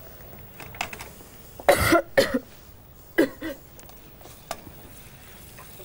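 Floured beef cubes frying in bacon dripping: a low steady sizzle with the fat beginning to spit, and small clicks of a wooden spatula stirring in the pan. A person coughs a couple of times around the middle, louder than the frying.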